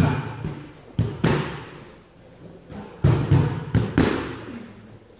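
Punches and kicks thudding on training pads in short combinations: one strike at the start, two about a second in, then a quick run of four, each with a reverberant tail.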